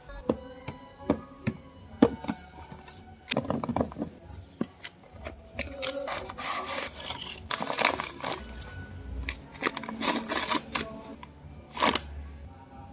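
Handling and opening a blind box's packaging: a few sharp taps near the start, then several bouts of rustling and scraping, over background music.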